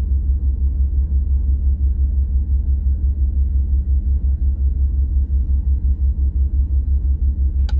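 Boat engine idling during its warm-up run: a steady low rumble with an even, rapid throb.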